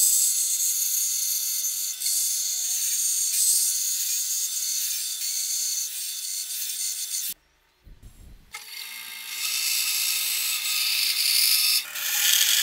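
Bandsaw running and cutting through plywood: a steady high hiss from the blade, with the motor's hum beneath. About seven seconds in it cuts off abruptly for about a second, with a low thump, then the sawing resumes.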